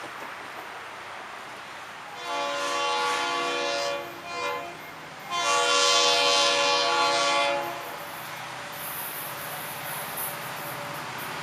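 Air horn of an approaching Florida East Coast Railway freight locomotive sounding a long chord blast, a short one, then a longer one, the closing part of the long-long-short-long grade-crossing signal. A steady low rumble of the oncoming train lies underneath and grows louder near the end.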